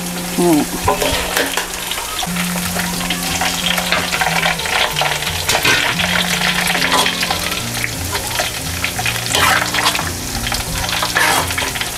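Pork pieces deep-frying in hot lard in a wok, the oil bubbling and crackling steadily, with the scrape and clink of a wire skimmer as the pieces are scooped out into a mesh strainer.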